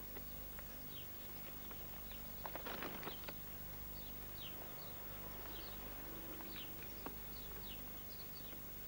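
A kitten rustling a paper sack, with a short burst of crackling paper about two and a half to three and a half seconds in. Birds chirp faintly in the background with short, falling chirps throughout.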